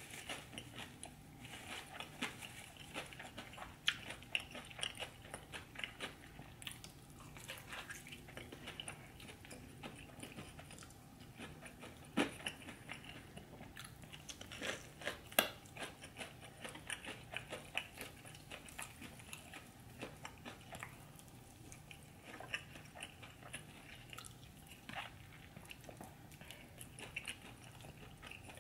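Close-miked eating: steady chewing and biting with wet mouth sounds and short crunches, a few sharper clicks standing out now and then.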